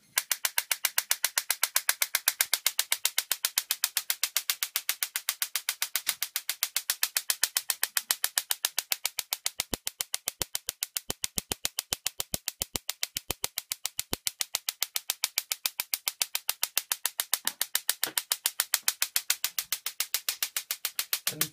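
Small spark-gap Tesla coil run from a 9-volt battery through a flyback driver, firing in a steady train of sharp snaps, about six a second.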